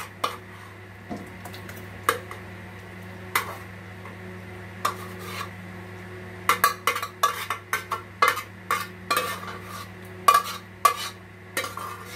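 Metal spoon scraping and clinking against a sufuria (cooking pot) as cooked eggplant stew is scooped out, in irregular knocks that come thick and fast in the second half. A steady low hum runs underneath.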